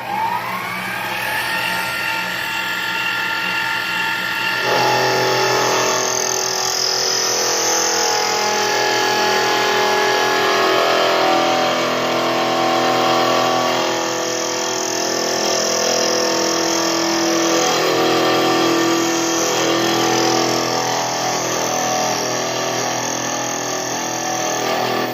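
Metal lathe motor spinning up to speed with a rising whine, then running steadily. From about five seconds in, a louder, busier layer of sound joins as the tool works into the spinning aluminum ring to cut it off.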